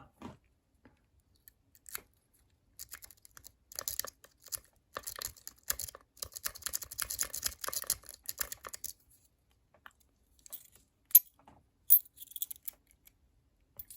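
A metal lock-pick rake scrubbing rapidly in the keyway of a Master Lock No. 3 laminated pin-tumbler padlock, a fast patter of small clicks and scrapes, followed near the end by two sharp, loud clicks as the lock opens.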